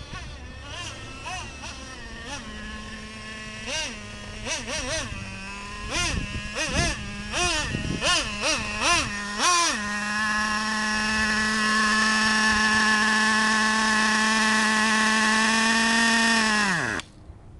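Traxxas Revo 3.3 nitro RC truck's TRX 3.3 two-stroke glow engine revved in a series of short throttle blips. It then holds a steady high-pitched scream for several seconds, drops in pitch and dies near the end as the fuel line is pinched to shut it off.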